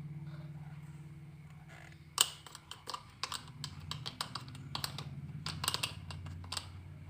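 The last low note of a song fades out, then a run of irregular light clicks and taps follows from about two seconds in, the first one the sharpest.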